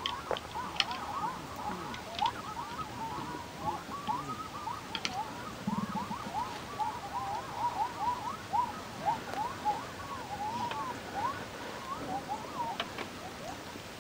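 A dense chorus of small animal calls, many short chirps overlapping without pause, with a few sharp clicks scattered through it.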